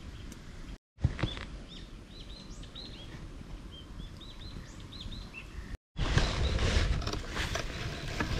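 Small birds chirping repeatedly in woodland. From about six seconds in, a louder rustling and crinkling of a cardboard box and a mesh bag as the cookware is handled and lifted out. The sound drops out for a moment twice.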